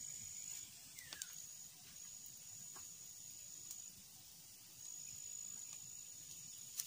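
Faint field ambience: a thin, high-pitched insect trill held steady with a few brief breaks over a soft hiss, and a few sparse faint crackles from a small wood fire.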